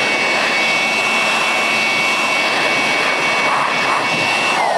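INGCO AB4018 400 W electric blower running at full speed: air rushing from the nozzle with a steady high motor whine. Just before the end the whine starts to drop in pitch as the motor winds down.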